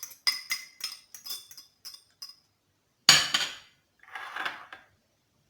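A utensil tapping against a bowl, about eight quick ringing clinks, as chopped green capsicum is knocked into the beaten eggs; then a louder clatter about three seconds in and a short scraping rustle.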